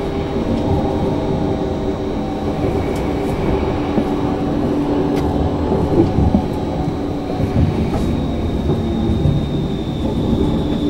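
Bombardier Flexity Outlook C low-floor electric tram running on the track, heard from on board: a steady rumble of wheels and drive with a thin high whine that grows stronger in the last few seconds, and a few sharp clicks.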